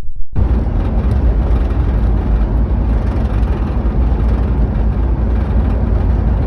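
Jeep driving, with steady engine and road noise heard inside the cab. The noise cuts in and out abruptly.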